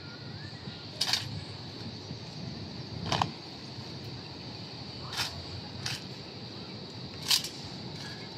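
Sharp slaps of hands on rifles in a marine silent drill team's rifle drill: five crisp claps, one every second or two, over a steady faint high hiss.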